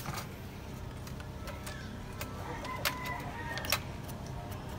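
Thin steel rods clicking and tapping against the nails of a wooden jig as they are set in place for a grill grate: scattered light clicks, with two sharper ones a little past halfway, over a steady low hum.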